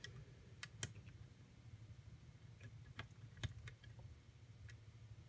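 A handful of faint, sharp metallic clicks from a lock pick and tension wrench working the pins inside a four-pin custom padlock, scattered irregularly, over a steady low hum.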